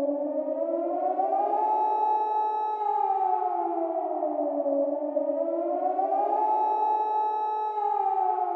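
Air-raid siren wailing in two tones at once. The pitch rises, holds high for about a second, then falls slowly, and it rises again about five seconds in.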